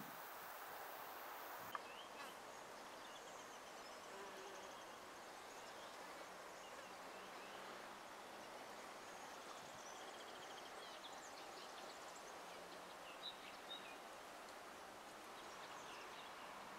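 Quiet outdoor ambience with faint, scattered bird chirps and a single sharp click about two seconds in.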